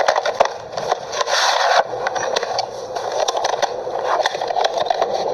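A VHS cassette being slid out of its cardboard slipcover and handled: scraping and rustling with small clicks, including a longer scrape about a second in.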